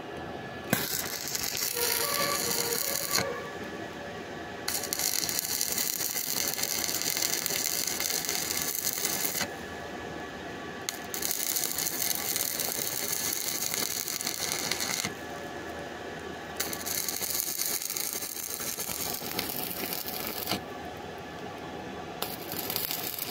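Stick (arc) welding on a metal pipe: the electrode arc crackling and sizzling in five runs of two to five seconds each, with short pauses between as the welder stops and restrikes.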